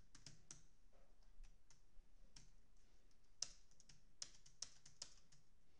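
Faint clicks of a computer mouse and keyboard, sparse at first, then a quicker run of clicks near the end.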